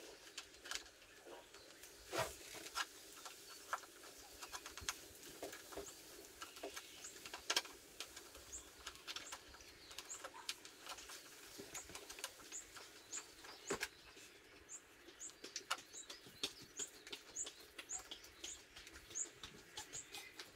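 Scattered light clicks and knocks of hands handling parts, clamps and wiring on a motorcycle. From about a third of the way in, a short high chirp repeats about twice a second.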